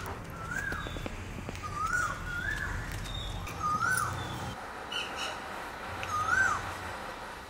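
Crow cawing repeatedly outdoors: about five calls, each rising then falling in pitch, a second or so apart, over a low background rumble that fades out about halfway through.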